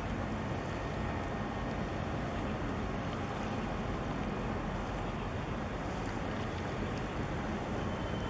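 Steady low rumble and rushing noise of an Evergreen C-type container ship passing close under way, mixed with wind on the microphone.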